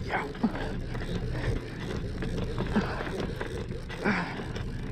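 Steady low rumble of a boat running on open water, with fine clicking from a conventional big-game reel being cranked during a fight with a hooked sailfish.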